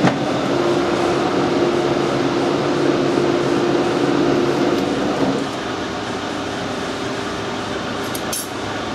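Metal lathe running under power with the lead screw engaged, taking a light scratch cut for a 4 TPI thread; a steady gear whine that drops away about five seconds in as the lathe is stopped, leaving a lower hum. A short sharp click near the end.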